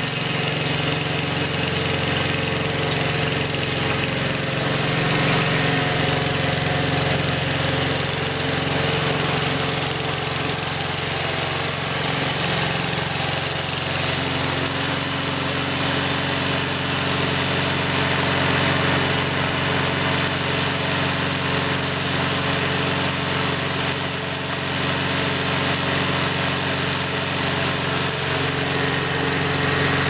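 Petrol lawn mower's Predator single-cylinder four-stroke engine running steadily at a constant speed while the mower drives itself across the grass.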